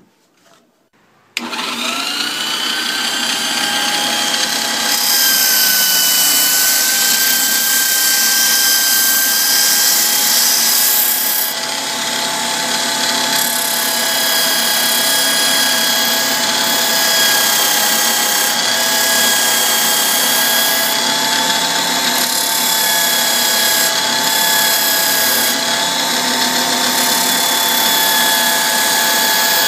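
A small electric motor starts suddenly about a second and a half in and runs steadily with a high whine and a hiss.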